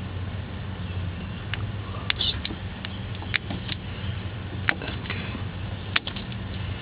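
Light scattered clicks and scratches of hands working electrical tape off two car wires that were taped together, over a steady low hum.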